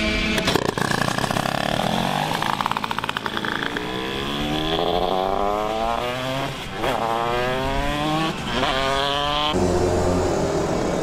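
Two-stroke racing kart engine revving and pulling away, its pitch climbing steadily, dropping back sharply twice and climbing again. Near the end a kart engine idles steadily.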